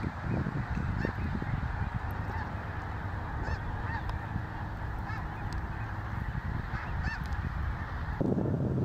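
A flock of geese honking at a distance, many short overlapping calls, over a low wind rumble on the microphone. About eight seconds in the calls stop and only the wind rumble is left.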